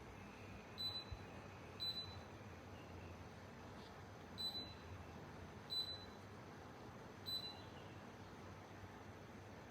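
Mini split air conditioner indoor unit giving five short, high single beeps at irregular intervals, the acknowledgement beep it makes on receiving a remote control command.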